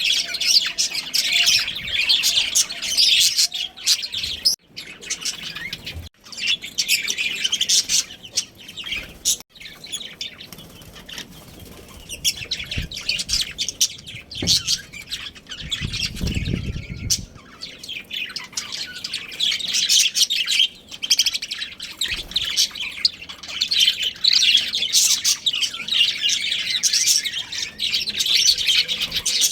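Budgerigars chattering and chirping in rapid, high-pitched bursts that come and go, with a brief low rumble about halfway through.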